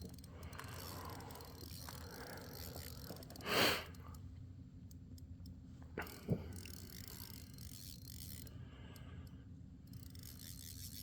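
Fishing reel ratcheting and clicking as a strong fish is fought on the line, with a short loud scrape about three and a half seconds in and two sharp clicks around six seconds.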